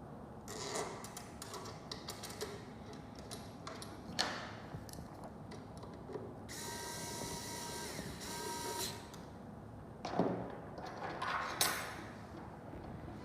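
Lock hardware being fitted by hand: scattered clicks and knocks of the parts being handled and pushed into place. A small motor whirs steadily for about two seconds a little past the middle.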